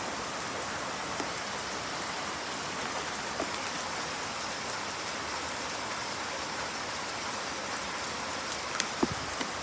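Steady rain falling, a dense even hiss, with a few sharper drops striking close by near the end.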